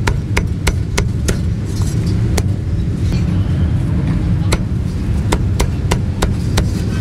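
Heavy meat cleaver chopping roast pork and duck on a thick wooden chopping block: sharp knocks in quick runs of a few a second, sparser in the middle. Steady rumble of street traffic underneath.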